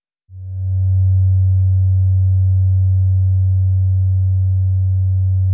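Low, steady sine test tone of roughly 94 Hz played through a loudspeaker to excite a room mode, with faint overtones above it. It fades in over the first second, then holds at an even level.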